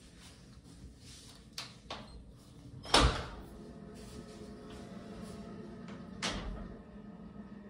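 A shower booth's black-framed frosted-glass door being handled and opened: a couple of small clicks, then a sharp knock about three seconds in and a second knock about six seconds in.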